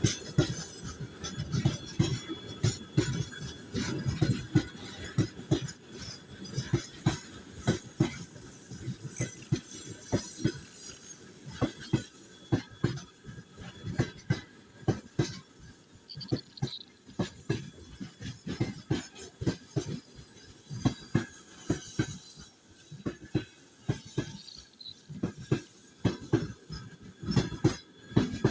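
Train wheels knocking over rail joints, an uneven run of sharp clacks over a steady rolling rumble. The rumble swells, then falls away about halfway through, leaving the clacks standing out more clearly.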